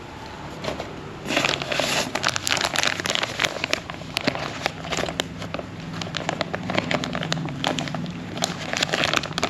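Plastic blind-box packaging crinkling and crackling in the hands as it is opened, a dense run of irregular crackles that starts about a second in.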